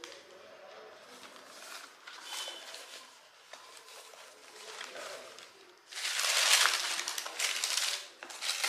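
A cardboard shoe box being handled and opened, with soft rustling, then loud crinkling of tissue paper being pulled back inside it from about six seconds in.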